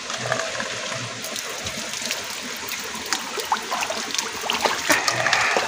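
Spring water trickling steadily from a bamboo spout onto wet rock, with scattered small drips and splashes. The running water grows briefly louder and brighter about five seconds in.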